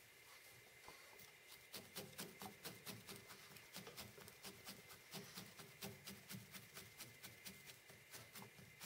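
Needle felting tool stabbing repeatedly into wool, a faint run of quick ticks and soft thuds at about four or five strokes a second, starting about two seconds in.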